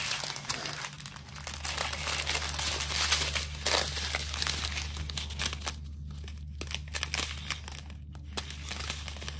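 Thin plastic zip-lock bags of diamond-painting drills crinkling and rustling as they are handled, in irregular crackles with brief quieter pauses about six and eight seconds in.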